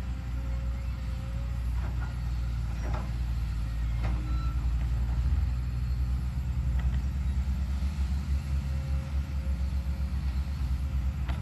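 Hyundai HX210HD excavator's diesel engine running with a steady low rumble that pulses more in the second half, with a few short knocks as the machine works the soil.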